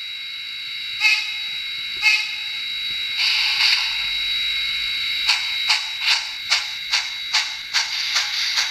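Synthesized steam sound from the DCC sound decoder of an On30-scale Shay model locomotive: a steady steam hiss with a faint whistling tone and two sharp clicks, then about five seconds in, the exhaust chuffs start at an even beat of about two and a half a second.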